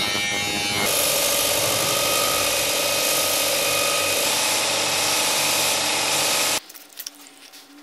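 An angle grinder cutting steel plate for about the first second, then a belt grinder running with steel pressed against its abrasive belt, a steady, even grind. Near the end the grinding stops abruptly, leaving a quiet room with a few faint clicks.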